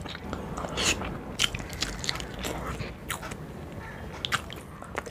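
Close-miked biting and chewing of a curry-coated fried boiled egg, with a string of sharp mouth clicks and smacks.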